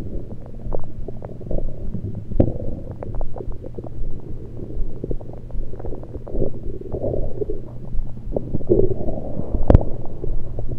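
Human stomach gurgles picked up by an electronic stethoscope on the abdomen: a continuous low rumble dotted with many small pops and clicks, a few louder bubbly gurgles in the second half and one sharp click near the end. The uploader puts them down to liquids and air rather than digestion.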